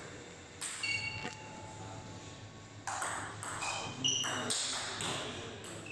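Table tennis ball struck back and forth in a rally, sharp clicks off the rackets and the table, several with a brief high ring, and a pause of about a second and a half in the middle.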